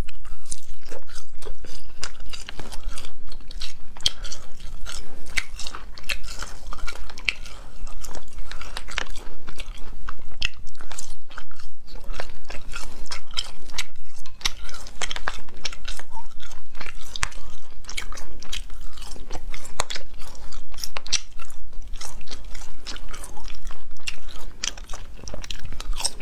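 Close-miked biting and chewing of spicy latiao gluten sheets: a steady run of short, sharp, wet mouth clicks and smacks.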